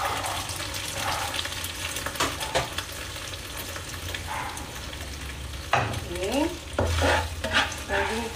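Marinated beef sizzling in hot oil in a wok while a spatula stirs it, scraping against the pan. The stirring gets louder and busier about two-thirds of the way in, with short rising squeaks of the spatula on the wok.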